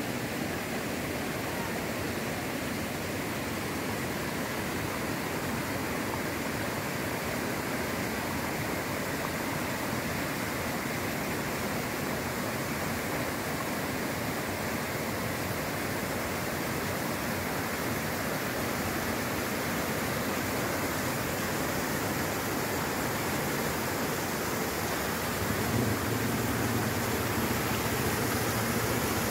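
Muddy floodwater rushing across a washed-out road and pouring off its broken edge: a steady rush of water that grows a little louder and deeper near the end.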